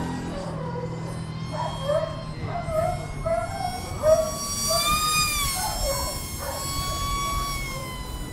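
Electric ducted fan of a UMX F-16 micro RC jet whining in flight. Its pitch swells up and back down about halfway through and sinks slowly near the end. Short separate calls are heard in the first half.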